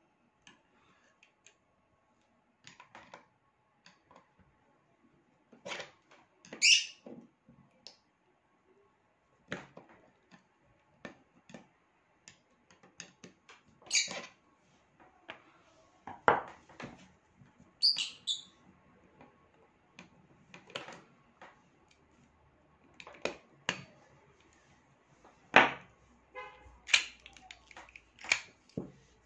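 Metal parts of a Kimar replica pistol being handled and probed with a screwdriver to free a stuck round: irregular clicks, taps and knocks of metal on metal, with a few louder scrapes.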